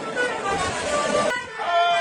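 Background music, cut off about two-thirds of the way in by a bus's multi-tone 'telolet' air horn sounding a long, steady note.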